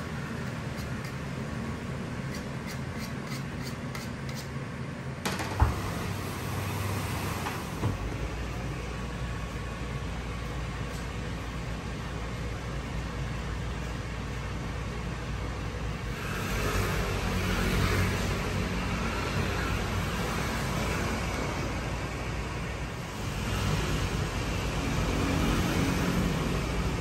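Steady low hum of kitchen machinery, with a sharp knock about five seconds in and another lighter one soon after, like tools set on a steel bench. In the second half come two longer stretches of louder hiss-like noise while egg custard is poured from a metal kettle into pastry-lined tart tins.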